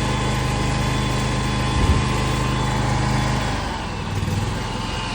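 Scag Tiger zero-turn mower engine running steadily, started with its safety switches jumpered after a new relay was fitted. A short knock about two seconds in; about three and a half seconds in the engine's steady note drops away.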